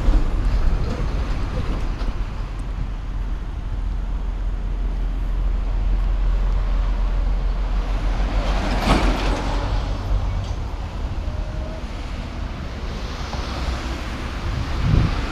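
Road traffic passing close by: cars and a truck drive past over a steady low rumble. The loudest pass comes about nine seconds in, and a smaller one near the end.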